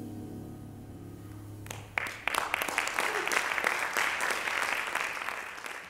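The band's final sustained chord (tenor saxophone, piano, upright bass) fades out; after about two seconds an audience breaks into loud applause, which tails off near the end.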